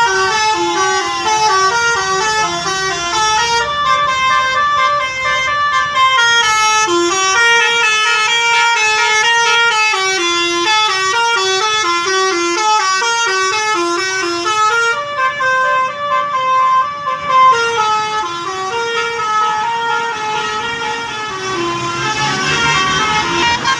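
Bus 'telolet' horn: a multi-tone musical air horn playing a continuous tune of short stepped notes, several a second.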